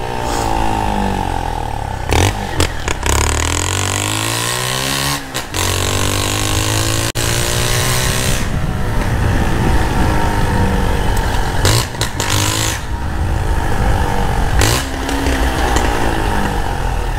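Motorcycle engine, fitted with a gutted (baffles-removed) muffler, being ridden hard: revving up through the gears, its pitch climbing and dropping back several times.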